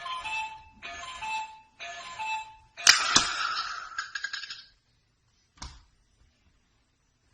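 Alarm clock sounding its two-note falling beep about once a second. About three seconds in a sharp bang, a shot at the clock, cuts the beeping off and is followed by a second or so of rattling. A single knock comes about two seconds later.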